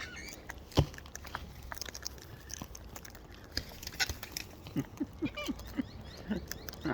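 Wild birds feeding from the hand: scattered sharp clicks of beaks pecking and cracking food, with faint high chirps. Near the end comes a quick run of about five short, low calls.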